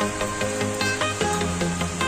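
Electronic background music with a sustained bass and a quick ticking beat.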